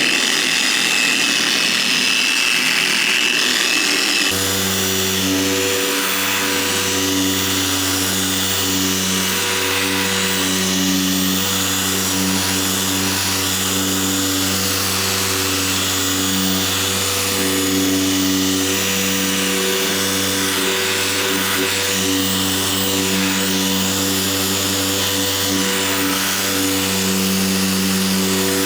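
Electric car polisher running steadily on speed setting 2, buffing compound into sanding scratches on a painted panel with a stiffer pad. About four seconds in, the sound changes to a steady low hum with a whir over it.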